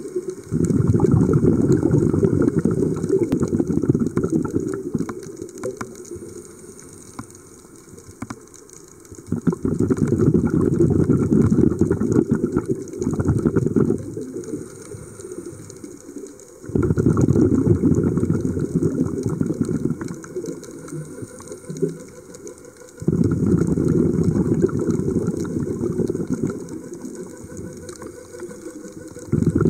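Scuba diver's regulator breathing heard underwater: long bursts of bubbling exhaust bubbles, each lasting several seconds and coming back every six or seven seconds, with quieter inhalations between.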